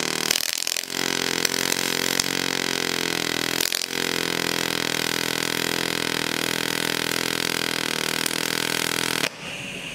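Pulsed MIG welding arc on thin stainless steel: a steady buzz with a brief break a little under four seconds in. The arc stops about nine seconds in, leaving a softer hiss of shielding gas on post-flow.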